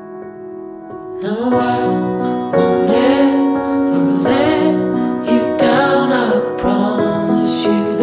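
Background music: a piano-led song with a sung melody. It is soft for about the first second, then comes in fuller.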